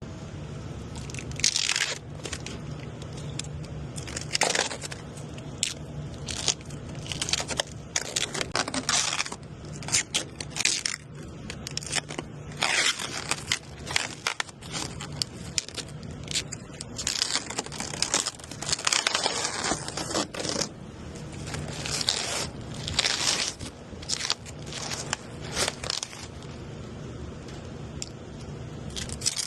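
A steady low hum with irregular scraping and crackling noises over it, some brief and some lasting a second or two.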